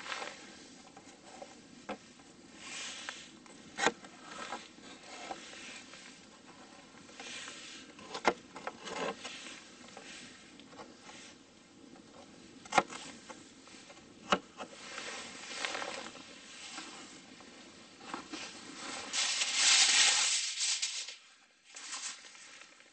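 A knife slicing potatoes and red bell pepper on a plastic cutting board, with rustling and a few sharp knocks of the blade on the board. Near the end comes a loud crinkling of aluminum foil being pulled out and spread.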